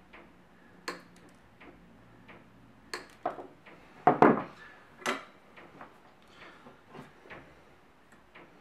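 Sharp snipping clicks of flush cutters cutting the protruding leads of a newly fitted MOSFET on a circuit board, a few snips in the first few seconds. A louder clatter comes about four seconds in, then lighter handling clicks.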